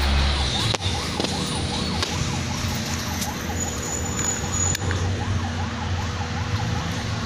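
A siren-like wail rising and falling quickly over and over, over a steady low hum, with a few faint clicks.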